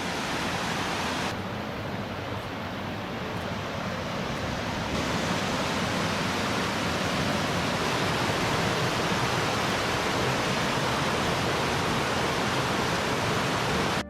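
Steady rushing roar of a waterfall cascading down several rock ledges, a little louder from about five seconds in.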